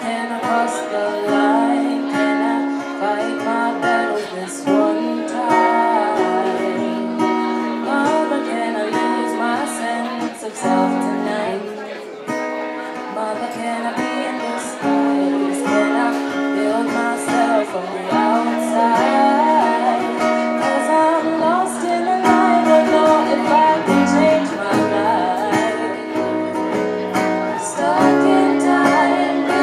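Live band music: guitar playing under a singer's voice, with steady sustained notes.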